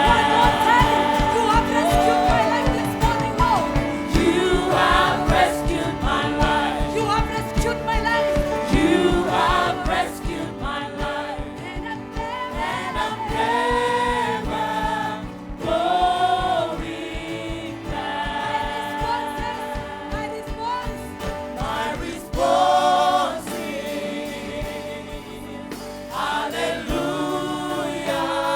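Live gospel worship music: several voices singing with a band accompaniment and a beat.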